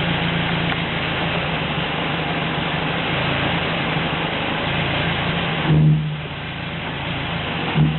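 Car steering rack humming: a steady low drone over a constant noise, swelling into a louder hum twice, about six seconds in and again near the end. The hum is the fault being shown.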